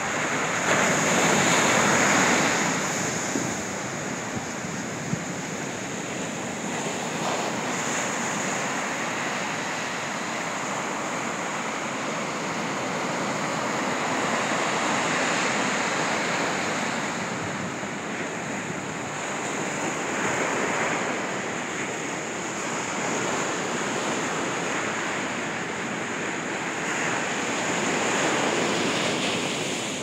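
Sea waves breaking into surf on a sandy beach and around rocks, a continuous wash that swells with each breaker and ebbs between them, loudest about two seconds in.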